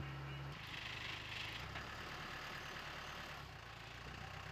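Aircraft tow tractor's engine running faintly as it tows a fighter jet. A steady low hum drops out about half a second in, leaving a fainter rumble.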